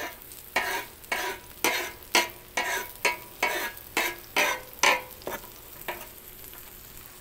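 A chef's knife blade scraping chopped onion and habanero across a hot flat-top griddle in quick strokes, about two a second, over the steady sizzle of the vegetables frying in olive oil. The scraping stops about five and a half seconds in, leaving the sizzle.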